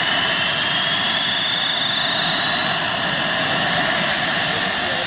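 Model turbine engine of a radio-controlled scale Aérospatiale Lama helicopter running on the ground with its rotors turning: a steady loud rush with a high whine that rises slowly in pitch.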